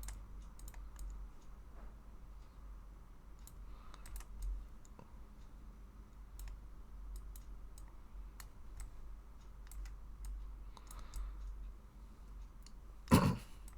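Scattered computer mouse and keyboard clicks, irregular and fairly faint, over a steady low electrical hum. A single louder short noise comes near the end.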